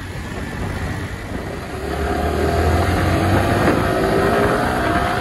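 Motorcycle engine accelerating, its pitch rising steadily from about two seconds in, with heavy wind rush on the microphone.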